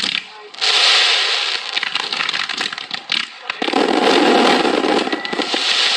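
Aerial fireworks bursting with a dense, continuous crackle, a heavier burst coming in about three and a half seconds in.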